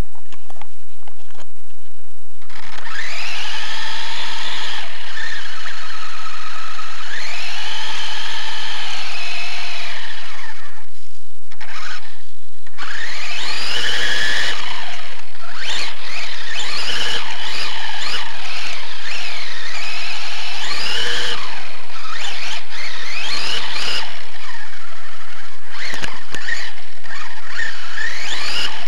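A 1:24-scale micro RC car's brushless motor and geartrain whine, heard close up from a camera riding on the car. The pitch climbs and falls over and over as the throttle is worked, with a short lull about halfway through.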